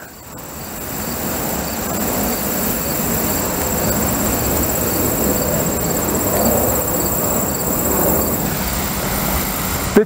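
Distant vehicle rumble, swelling in over the first second and then holding steady. A thin, steady, high insect trill sits above it.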